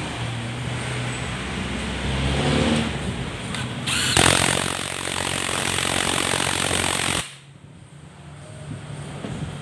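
A DeWalt cordless impact wrench hammers on a bolt of a Honda Click 150 scooter for about three seconds. It starts about four seconds in and cuts off suddenly.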